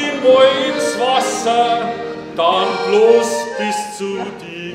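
A man singing a German song with an accordion accompanying him.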